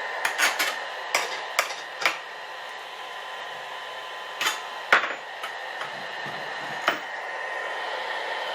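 Sharp knocks and clicks of wood and jig parts being handled on a table saw, about ten in all, the loudest a little before halfway, over a steady hum.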